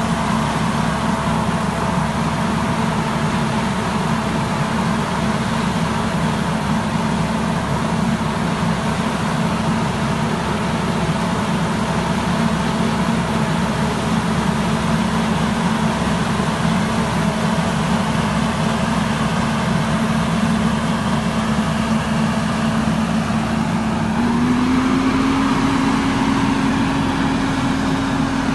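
Orchard atomizer sprayer running with a steady mechanical drone, its pitch stepping up and its level rising slightly near the end.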